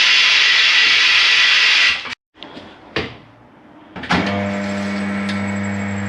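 A loud blast of compressed air hisses for about two seconds and cuts off, followed by a few clicks. About four seconds in, a steady machine hum starts up.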